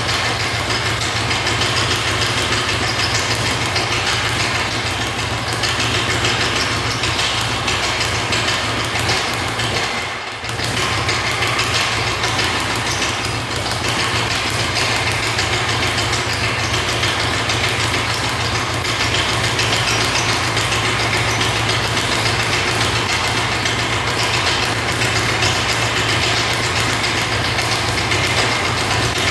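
Speed bag punched at a very fast, continuous pace, the bag drumming against the rebound board in a dense rapid rattle. There is a brief break about ten seconds in.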